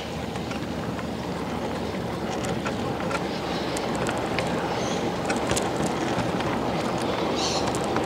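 Wheels of a 5-inch gauge miniature train's wagons rolling on steel rails: a steady rumble with scattered sharp clicks, growing slightly louder as the train moves off.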